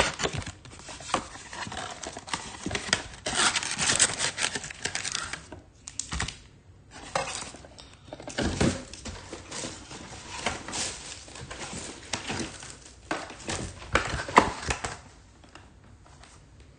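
Trading-card packs and cards being handled: wrappers crinkling and tearing, with cards clicking and sliding against each other in irregular rustles and taps. The handling dies down for the last couple of seconds.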